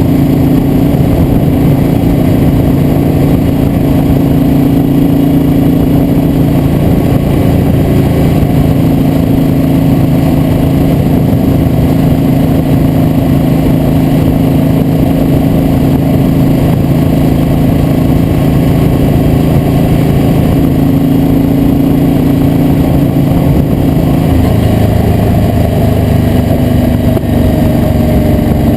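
Vehicle engine running steadily at cruising speed, with a steady rush of noise over it. The engine note changes and drops about 24 seconds in.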